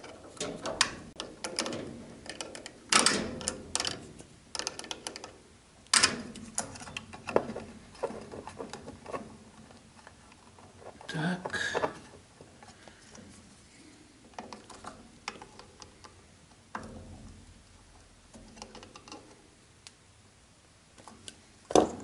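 Irregular clicks and light metal rattles from a metal electrical junction box, its wires and wire strippers being handled while a ground wire is connected. The clicking is busiest in the first half and sparser later.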